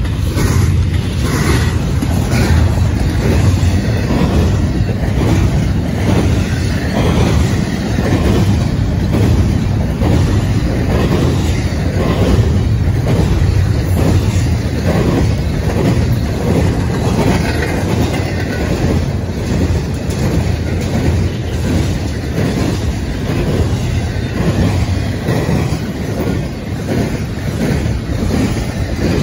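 Empty double-stack intermodal well cars of a freight train rolling past, their steel wheels clicking over the rail joints in a steady clickety-clack over a low rumble.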